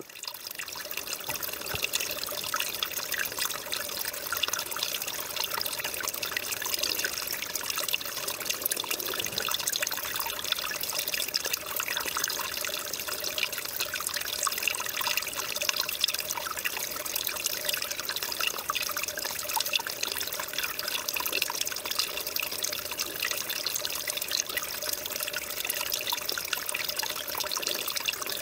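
Small forest stream trickling and splashing over stones and past a fallen log: a steady, dense babble of small splashes, fading in at the start.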